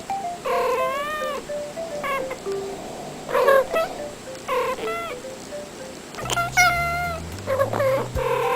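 Domestic cat meowing about six times, each call rising and then falling in pitch, over background music.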